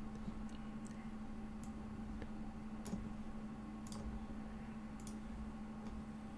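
Faint, scattered clicks of a computer mouse, roughly one a second, over a steady low hum.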